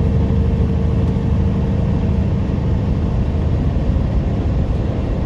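Steady, even drone of a semi truck's diesel engine with road noise, heard inside the cab while cruising on the highway.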